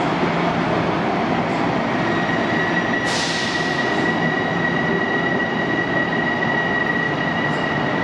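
Long Island Rail Road M7 electric train running away into the tunnel: a steady rumble of wheels on rail. A high, steady wheel squeal sets in about two and a half seconds in and holds. A brief hiss comes about three seconds in.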